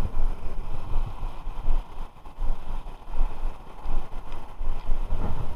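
Gusty wind buffeting the microphone, an uneven low rumble that rises and falls.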